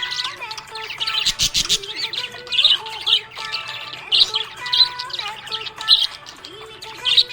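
Budgerigars chirping continuously in quick, high chirps, several a second.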